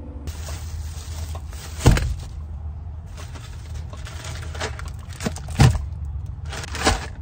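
Groceries loaded into a car's rear cargo area: plastic-wrapped packages rustle and crinkle, and three loud thumps come as packages are dropped onto the rubber cargo mat, with a steady low rumble of wind or traffic underneath.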